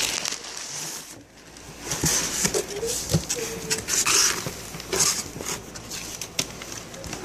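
Cardboard shipping box being opened by hand: flaps pulled back and handled, with bursts of rustling and scraping cardboard and scattered knocks and clicks.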